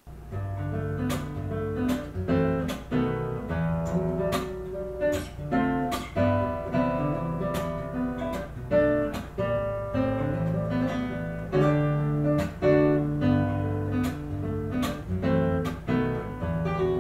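Acoustic guitar music: picked notes over a bass line, with a strummed chord sounding on a steady beat.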